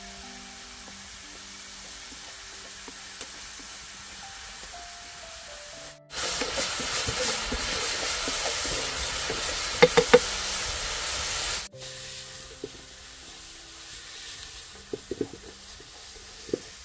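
Soft background music; about six seconds in, minced meat frying in a skillet sizzles loudly for about five seconds, with a few sharp clicks as it is stirred, then cuts off suddenly back to the music.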